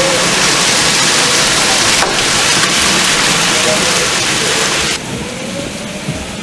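Heavy rain pelting down in a dense, loud hiss, which drops suddenly to a much quieter rain hiss about five seconds in.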